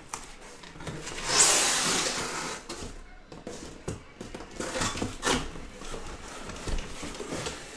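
Cardboard scraping and rustling as inner cases are pulled out of a cardboard master case. A long loud scrape comes about a second in, followed by several knocks and scuffs of box against box.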